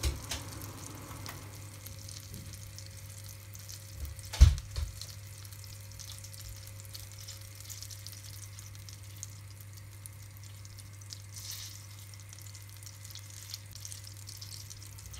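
A block of butter sizzling steadily as it melts in a pan on the stove, with one sharp knock about four and a half seconds in.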